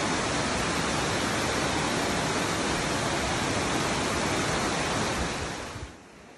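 Heavy rain pouring down in a steady hiss, fading out about a second before the end.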